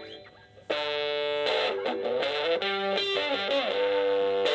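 Electric guitar playing a lead melody: after a brief pause at the start, a run of single held notes, with a bend up into a sustained note near the end.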